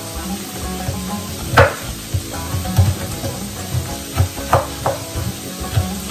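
Kitchen knife chopping green peppers on a wooden cutting board: irregular blade knocks against the board, roughly one or two a second, the loudest about a second and a half in.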